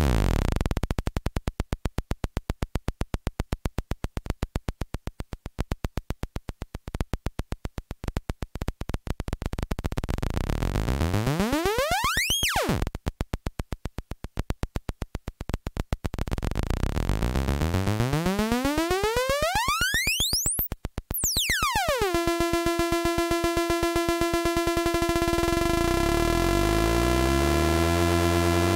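The voltage-controlled oscillator of an MFOS Sound Lab Mini-Synth is swept by hand on its frequency knob. It starts so low that it is a slow train of separate clicks, glides up to a high whistle and back down twice, then settles on a steady buzzy mid-pitched tone. Near the end a second, lower tone slides down beneath it.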